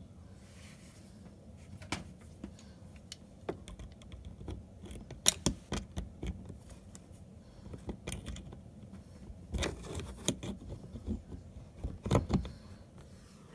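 Irregular metallic clicks, clinks and light clatter of hand tools and metal parts being handled, with the loudest knocks about five seconds in and again near the end.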